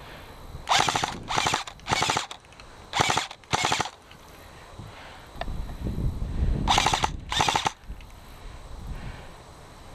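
Airsoft gun firing short full-auto bursts of rapid clicking shots: three bursts about a second in, two more around three seconds, and a last pair around seven seconds. A low rumble runs under the last pair.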